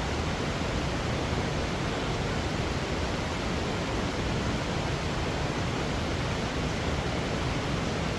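Steady rush of flowing river water, an even hiss-like noise that does not change.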